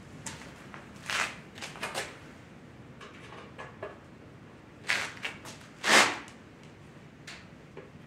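Scattered clicks, scrapes and clunks of a screwdriver and metal parts being handled as the headlight is taken out of a 1978 Yamaha SR500, with a few knocks about a second in, more about five seconds in and the loudest about six seconds in.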